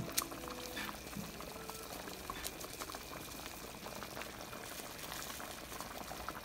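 Thick peanut butter and tomato stew simmering in a pan, bubbling steadily with many small pops as the bubbles burst.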